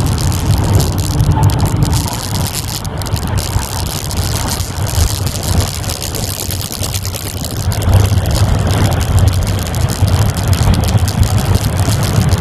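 1990 Mazda Miata's 1.6-litre four-cylinder engine, with aftermarket header, exhaust and cold air intake, running hard at track speed, heard from inside the cabin. The engine note eases off for a few seconds while the car brakes and corners, then grows louder again about eight seconds in as it accelerates.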